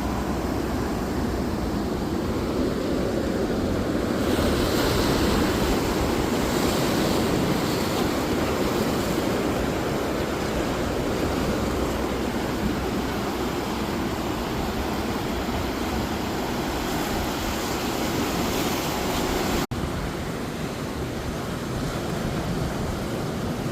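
Ocean surf washing steadily, with wind rumbling on the microphone; the sound cuts out for an instant about 20 seconds in.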